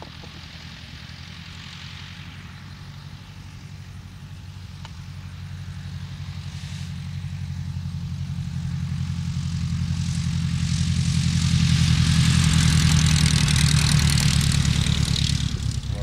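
Aeronca L-3 light plane's 65 hp Continental flat-four engine and propeller running steadily as the plane comes in low over the field, growing louder as it nears. A rushing propeller hiss joins in about ten seconds in, the loudest part comes just before the end, and then the sound drops away sharply as the plane passes by.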